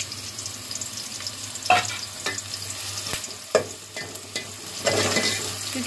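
Sliced onions sizzling in hot oil in a steel pot, with a spoon clicking and scraping against the pot now and then and a louder stretch of stirring near the end. The onions are being fried to a light brown.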